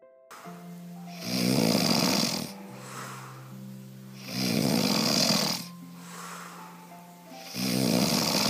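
Snoring: three loud, rasping snores about three seconds apart, over background music with long held notes.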